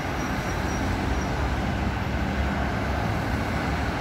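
Steady road traffic noise of cars passing on a busy multi-lane road, an even rumble with no single event standing out.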